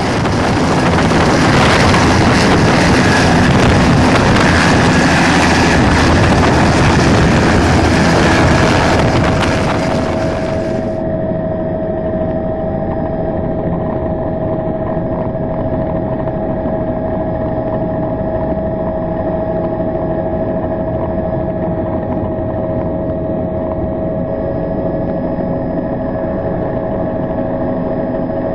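Bell 206 helicopter's turbine engine and rotor running on the ground: for about the first ten seconds a loud, dense rush. Then, about ten seconds in, the sound turns duller and steadier, with a fixed whine held through the rest.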